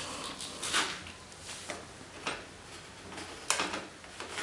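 A stainless steel DOS jigsaw slip-on silencer being handled and fitted onto a motorcycle exhaust pipe: a few scattered metal clicks and scrapes, the loudest about three and a half seconds in.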